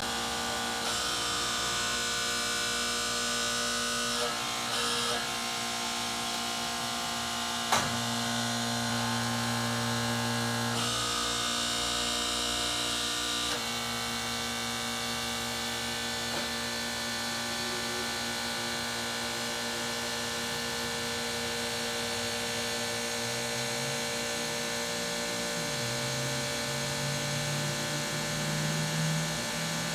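Electric motors of a Wotan 200/15-16 heavy-duty internal grinder running with a steady hum and whine. There is one sharp click about eight seconds in, and near the end a low tone climbs in steps.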